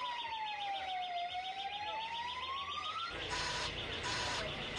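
Vehicle siren wailing, one slow sweep down and back up in pitch, followed by about three short on-off alarm beeps.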